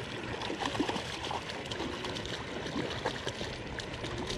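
Hooked rainbow trout splashing at the surface of the pond: an even wash of water noise with scattered small clicks.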